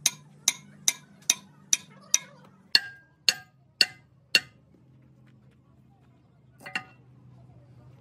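Hand hammer striking the steel piston-rod end of an excavator hydraulic cylinder with sharp, ringing metal clinks, knocking the rod and piston out of the barrel. It strikes about twice a second, then four slower blows, then a single lighter metal clank near the end, all over a low steady hum.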